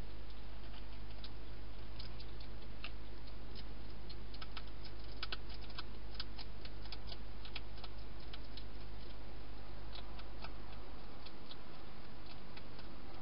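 European hedgehog crunching dry food inside a plastic feeding box: irregular sharp clicks, thickest in the middle, over a steady low hum.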